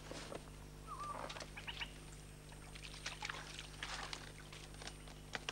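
Sago pulp being washed by hand at a leaf-stem trough: faint scattered knocks and splashy handling sounds, with a brief chirp about a second in and a few short chirps after it.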